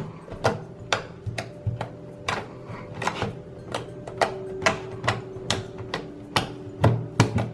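Fluffy slime being squished and poked by hand, giving irregular sharp clicks and pops about two or three times a second, over faint background music.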